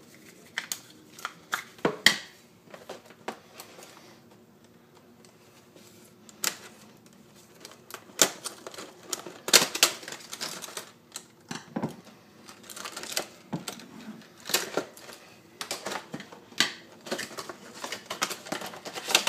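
Hands opening a clear plastic retail box on a wooden table: irregular clicks, taps and crinkles of the stiff plastic packaging, with louder clusters of clatter near the middle.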